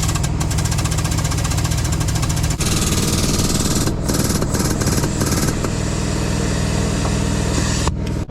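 Air impact wrench hammering rapidly at a tractor's wheel nuts, then running in several bursts with brief pauses, over a steady low drone.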